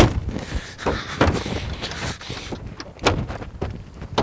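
Car door being handled from inside: a sharp click at the start, then a few scattered dull knocks and rustling.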